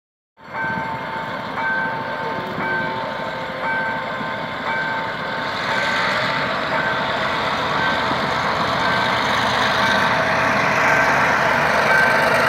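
Level-crossing warning alarm beeping in two alternating tones, about once a second, as a GM G22 diesel-electric locomotive hauling a passenger train approaches. The running of the engine and train grows steadily louder.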